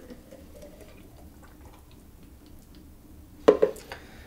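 Thick blended smoothie pouring from a blender container into a glass jar, a soft wet pouring sound that fades out, then two quick knocks about three and a half seconds in.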